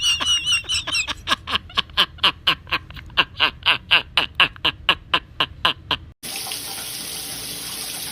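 A bird calling: a warbling trill, then a quick run of short squawks, about four a second, each falling in pitch. About six seconds in, it cuts off abruptly, and a tap runs water steadily.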